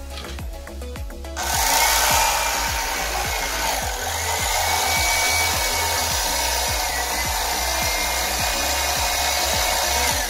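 Electric fillet knife switched on about a second and a half in, its motor and reciprocating blades running steadily while cutting a fillet off a jack crevalle, then switched off at the very end. Background music plays underneath.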